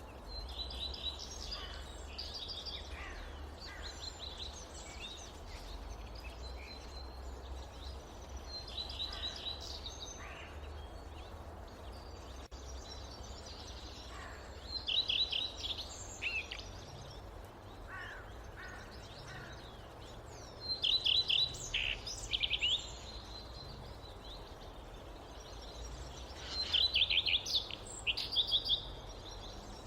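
Songbirds singing in a forest: scattered song throughout, with three louder phrases of rapid high notes about six seconds apart, over a steady low rumble.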